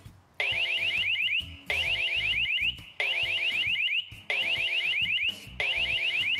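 Toucan WiFi security camera's built-in siren sounding in five bursts of about a second each, starting about half a second in. Each burst is a fast run of short rising chirps, about seven a second.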